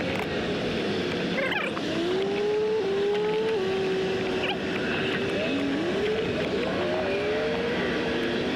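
Engines of vehicles going by, their pitch rising and dropping back in steps as they accelerate through the gears, over a steady traffic hiss. There are a couple of brief rustles of a cable being handled, at about a second and a half and four and a half seconds in.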